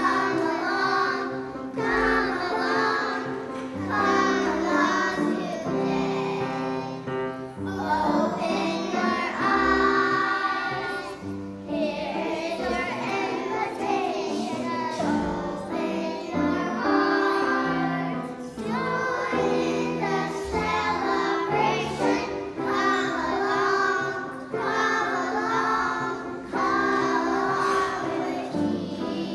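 Children's choir singing a song in unison, with instrumental accompaniment holding steady notes underneath.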